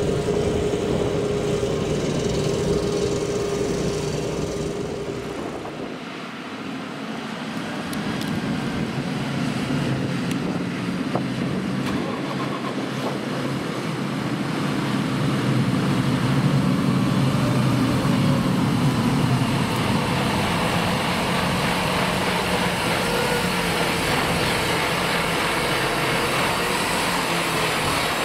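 Heavy diesel machinery running, with the engine note shifting up and down. It dips in loudness about six seconds in, then builds back up and holds steady.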